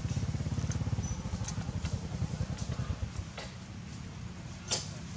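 A small motorcycle engine idling, a low, rapid, even putter that eases off somewhat after about three seconds. A few short sharp clicks sound over it, one louder near the end.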